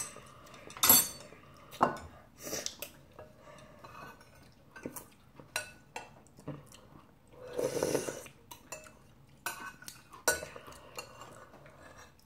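Metal spoons and chopsticks clinking and scraping against ceramic bowls of ramyeon broth in a string of sharp clicks, with a longer slurp about eight seconds in.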